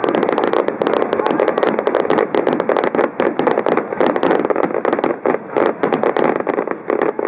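Fireworks going off in a dense barrage: rapid, overlapping bangs and crackling without a break.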